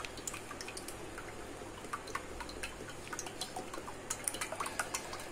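Cooking oil poured in a thin stream into a wide metal kadai to fill it for deep frying, with scattered small ticks and drips over a faint liquid noise.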